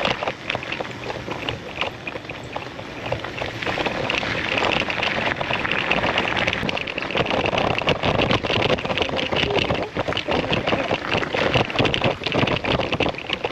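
Riding an electric bike over a bumpy dirt trail: steady wind noise on the microphone, mixed with the crunch of tyres and a constant run of small knocks and rattles from the bumps.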